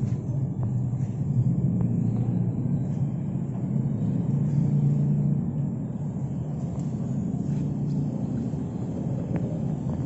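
Steady low rumble with no clear rhythm or pitch changes, that cuts off abruptly at the very end.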